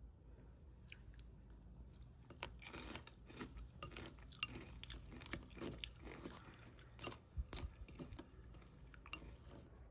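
Chocolate granola clusters in yogurt crunching: a string of irregular crisp crunches and clicks, thickest in the middle, with a couple of sharper cracks.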